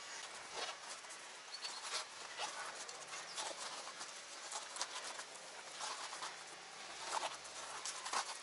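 Handling noise of a bicycle tyre and inner tube being worked off the wheel: irregular rubbing, rustling and light scrapes of rubber, with a few sharper clicks.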